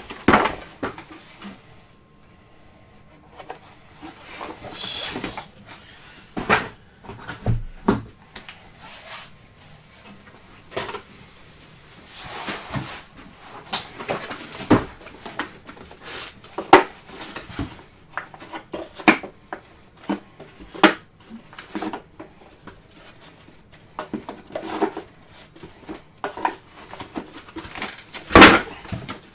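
Trading cards and their packaging being handled and set down on a tabletop: irregular taps, knocks and rustles, with one louder knock near the end.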